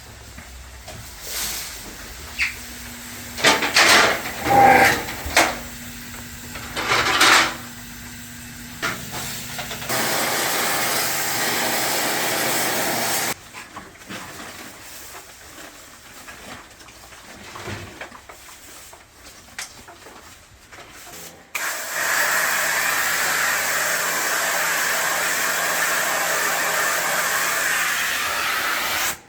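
Work sounds from a home air conditioner being taken apart and cleaned: knocks and handling of parts, then a steady hiss for about three seconds that cuts off abruptly. After a quieter spell, the steady hiss starts abruptly again and runs on.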